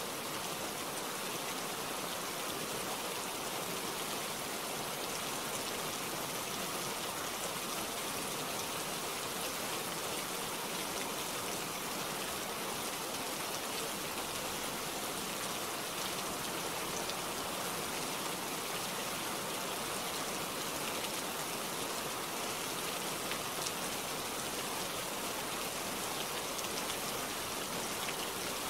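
Steady rain falling on tree leaves, an even, continuous hiss of drops that does not change.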